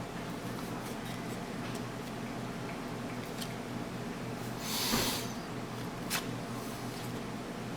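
Steady low room hum with a few faint ticks and one short breathy swish about five seconds in, the soft handling noise of trading cards being flipped through.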